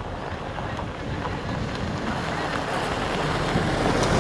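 Wind buffeting the microphone: a steady, rumbling noise that grows louder over the last couple of seconds.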